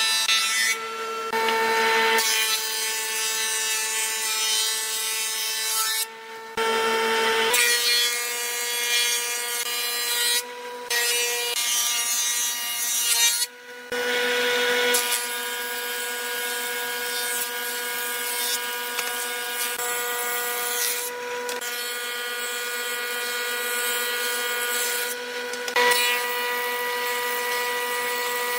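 Combination jointer–thickness planer running with a steady whine while its cutterhead planes rough recycled boards fed through it. The sound cuts off briefly several times.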